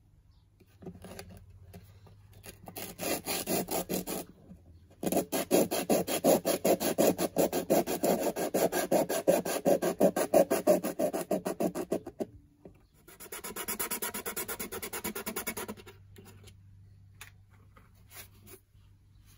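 Sandpaper rubbed by hand on a ukulele's finished wooden top in quick back-and-forth strokes, sanding through the finish to bare wood for the bridge to be glued on. It comes in several runs of strokes, the longest about seven seconds.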